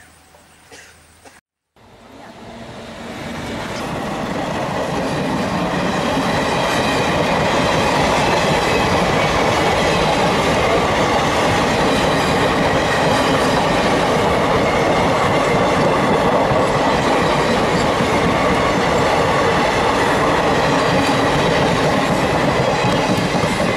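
Indian Railways passenger train passing close by: a steady rush of wheel-on-rail noise that builds over the first few seconds after a moment's quiet, then holds steady.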